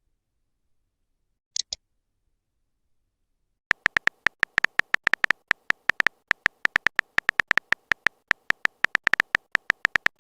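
Smartphone on-screen keyboard typing clicks. A brief double click comes about one and a half seconds in, then from about four seconds in a fast, uneven run of short, sharp clicks follows, about six a second.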